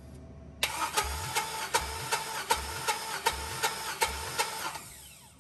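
Starter cranking a cold 4.8-litre LS V8 with the throttle held wide open so it does not fire, during a compression test: a steady whir with regular clicks a bit under three a second and a deeper pulse about every three-quarters of a second, fading out near the end.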